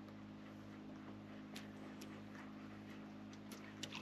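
Faint steady low hum with a handful of sharp, irregular ticks and clicks scattered through it, several of them close together near the end.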